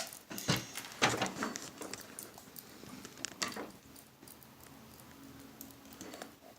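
Tape being peeled off a homemade balloon stress ball: scattered crackles, taps and short scrapes of handling, busiest in the first few seconds and then quieter.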